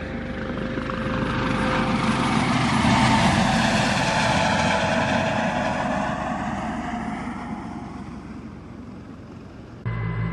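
Helicopter flying past: its rotor and engine noise swells over the first few seconds, falls in pitch and fades. Near the end it cuts suddenly to a steadier, lower drone.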